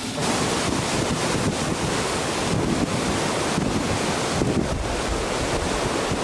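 Hurricane-force wind blowing hard across the microphone: a steady, dense rush of wind noise.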